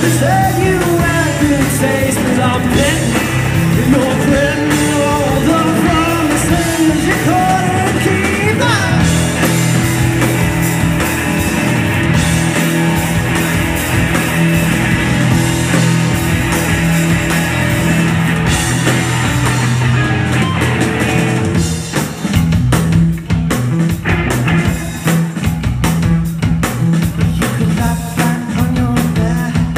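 Live rock band playing loud: electric guitar, bass guitar and drum kit. Sustained, held chords through the first two-thirds give way to a choppier stop-start section with sharp drum hits.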